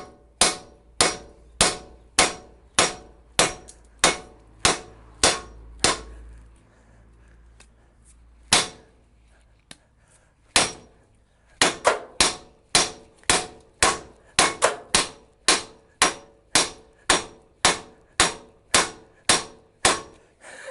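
A hammer striking metal on a car's front suspension, about two blows a second, each with a short metallic ring. A run of about a dozen blows is followed by a pause with two single strikes, then a steady run of about fifteen more.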